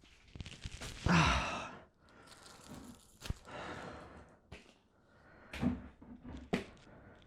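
A man sighing and breathing heavily in frustration, with a loud exhale about a second in and short grunts later, amid small clicks and taps, one sharper click near the middle.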